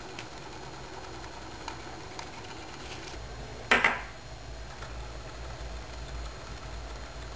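Homemade electric motor, a magnet-wire coil spinning in bent paper-clip supports over a magnet, running with faint scattered ticks and rattling from the coil's wire ends in the clips. A little under four seconds in there is one sharp, loud clack as the coil is handled in its supports.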